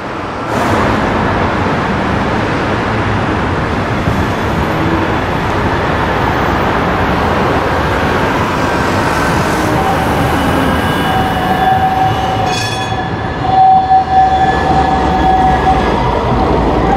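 Tram rolling round a tight curve in the track toward the camera, a steady rumble of wheels on rail. From about two-thirds of the way in, a thin high wheel squeal sets in and grows louder as the tram passes close by.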